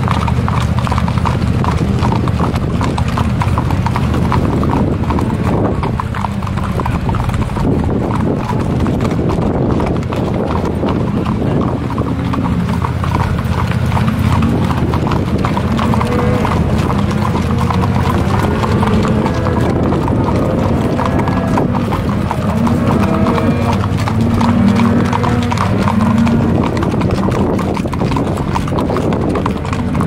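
Horses' hooves clip-clopping on an asphalt road as a group of riders walks along, the ridden horse's steps closest.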